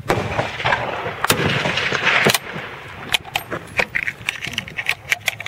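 A rifle shot at the very start rings out for a couple of seconds. Then comes a run of quick metallic clicks and clacks as the rifle's bolt is worked and it is reloaded.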